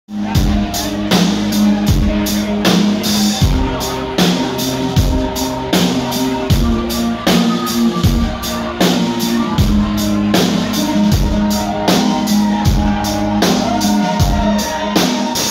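Live rock band playing an instrumental passage: a drum kit keeps a steady beat under bass, electric and acoustic guitars and keyboard.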